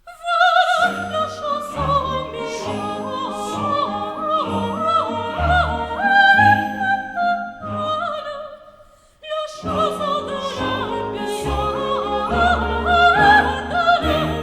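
A classically trained voice singing over an orchestra, with a strong vibrato; the music breaks off for about a second near the middle and starts again.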